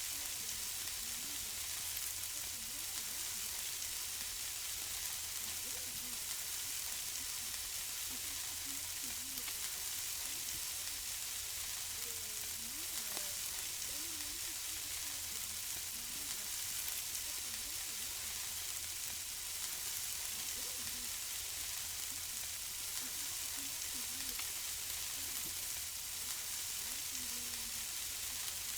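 Food sizzling on a barbecue grill: a steady, even hiss that keeps on without a break.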